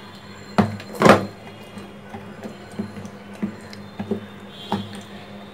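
A clear drinking glass knocking against a plate as it presses and mashes soft eggplant pulp: irregular taps roughly every half second, the two loudest knocks about half a second and a second in.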